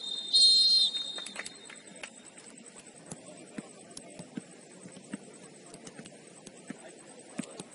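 A referee's whistle: a short, loud, shrill blast about half a second in, right after the end of another. After it there are only faint scattered taps over the open-air ambience of the pitch.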